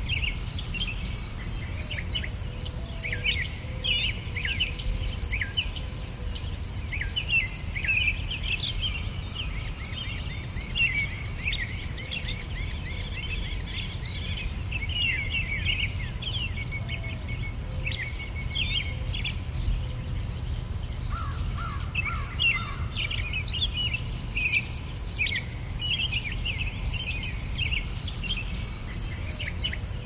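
Woodland ambience: an insect chirping in a fast, even pulse, with birds giving many short sweeping calls over it and a steady low rumble underneath.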